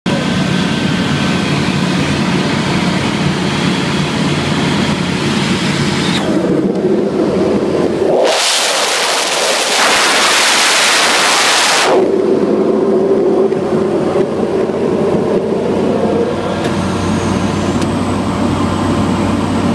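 Light aircraft's engine and propeller droning steadily in the cockpit. From about eight seconds in until about twelve, a loud rush of wind over the microphone drowns the drone out, then the drone returns.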